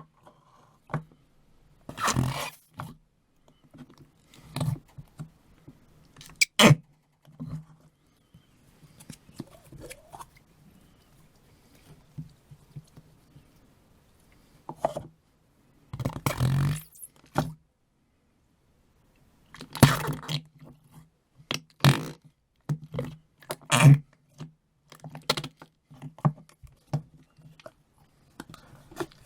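Noise putty being squeezed and pressed in the hand and its pot: irregular wet squelches, clicks and pops, with a few longer squelches of up to about a second, the loudest near the start and around the middle.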